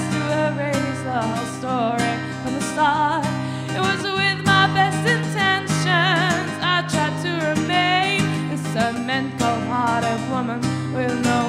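Live acoustic music: a woman singing sustained notes with vibrato, accompanying herself on acoustic guitar.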